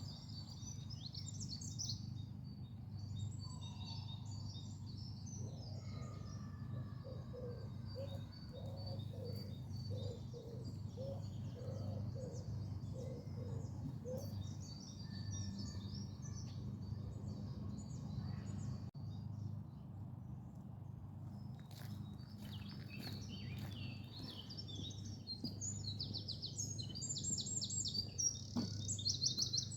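Several songbirds singing and chirping over a steady low hum. A run of about a dozen evenly spaced lower calls comes in the first half, and a louder, fast trilled song comes near the end.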